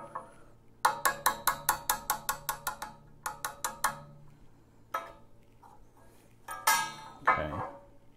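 Ball-peen hammer tapping a small steel punch about fifteen times, at about five light metallic taps a second, driving the float hinge pin out of a motorcycle carburetor. A louder clatter follows near the end.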